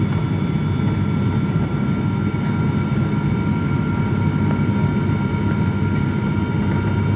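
Airliner cabin noise in flight: a steady low engine and airflow rumble with several thin, steady whining tones above it.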